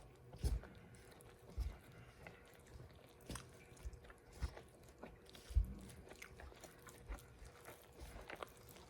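Bread dough being kneaded by hand: soft, sticky squishing and pressing, with dull irregular thumps about every second or so.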